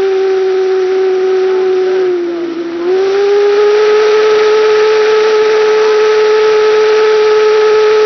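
Homemade steam whistle, built from junk parts and fed by a 55-gallon drum steam generator, blowing a loud steady note over the hiss of escaping steam. About two seconds in its pitch sags and it weakens briefly, then it comes back up and holds.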